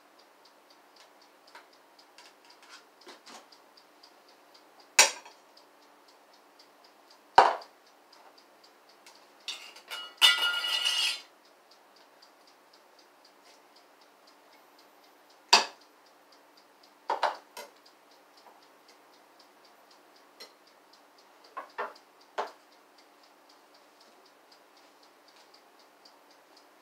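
Dishes and serving utensils clinking and knocking every few seconds as food is dished out, with a longer clatter about ten seconds in. A steady, faint, fast ticking runs underneath.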